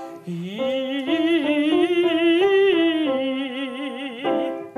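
A voice singing a short vocal exercise. It slides up into the first note, then holds a run of notes with wide vibrato that steps up and comes back down, and stops shortly before the end.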